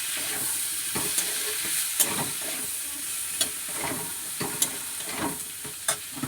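Cubed potato and Malabar spinach stems sizzling steadily in hot bhetki fish fat in a pan, while a spatula stirs and scrapes them with short knocks against the pan about once a second.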